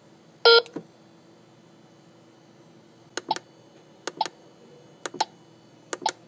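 Biometric fingerprint time clock beeps once, briefly, about half a second in as the third fingerprint scan is taken. From about three seconds in, its keypad buttons are pressed four times about a second apart, each press a quick double click.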